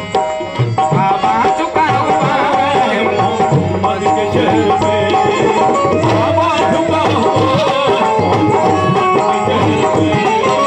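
Live qawwali music: a harmonium holding steady chords under tabla drumming, with sung vocal lines weaving over them.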